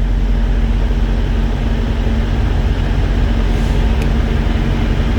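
A nearby engine idling with a steady low drone, and a light click about four seconds in.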